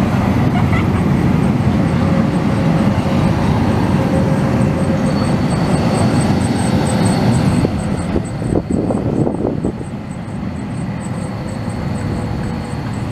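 Porto Metro Eurotram light-rail vehicle passing close by: a loud, steady rolling rumble with a faint steady whine. About eight seconds in, the sound drops to a quieter rumble as another tram approaches.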